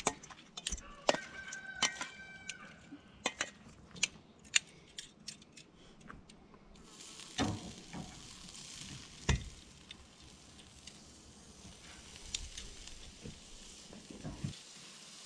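Metal tongs clinking against a stainless steel bowl and a grill grate. From about seven seconds in, shrimp sizzle steadily on the hot grate of a small portable charcoal grill, with more clinks as they are laid down.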